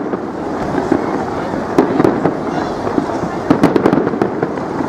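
Aerial fireworks bursting with sharp bangs and crackles: a cluster about two seconds in, then a quick run of bangs near four seconds.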